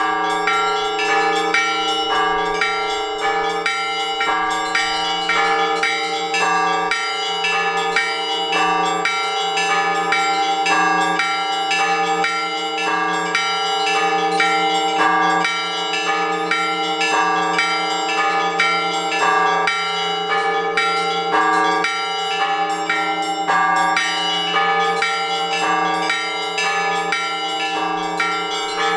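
Orthodox church bells rung together for the all-night vigil: several bells of different pitches struck in a fast, even rhythm over the steady hum of the larger bells.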